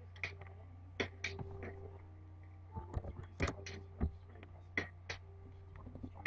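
Faint, irregular clicking of computer keys and mouse buttons, some in quick runs, over a low steady hum.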